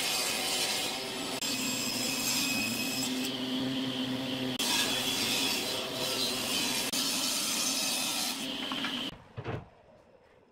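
Table saw ripping a wooden board lengthwise: a steady sawing noise over the motor's hum that cuts off suddenly about nine seconds in.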